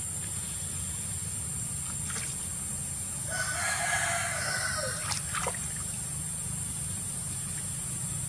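An animal call about three seconds in, lasting just over a second and dropping in pitch at its end, followed by a short falling call, over a steady background hiss.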